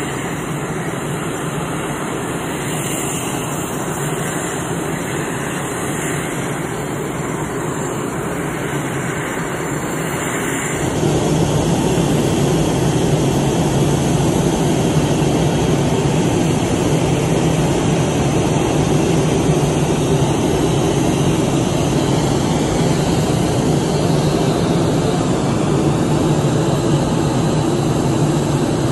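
Steady, loud aircraft engine noise with a low hum, becoming louder about eleven seconds in.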